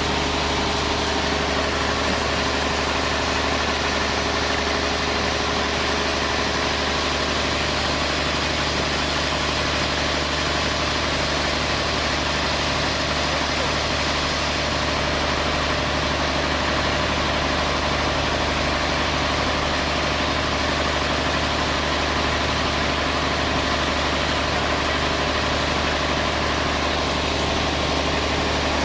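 Sawmill band saw machinery running steadily: an even low hum with a broad hiss above it that does not change.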